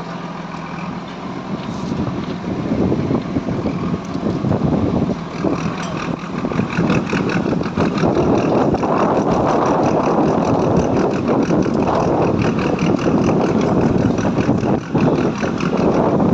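Petrol-fuelled preheating burner for a thermit rail weld, lit and burning with a loud, steady rushing noise with a fast flutter in it. It swells over the first few seconds, then holds.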